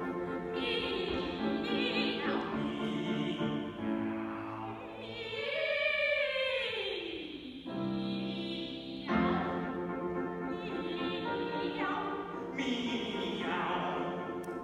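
Operatic singing by a small group of voices with piano accompaniment. About six seconds in there is a long sliding fall in pitch, then held notes.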